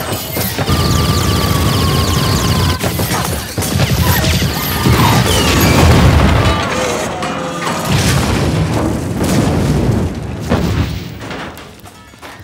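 Film action sound effects: heavy booms and crashing impacts over an orchestral score. The din fades away over the last two seconds or so.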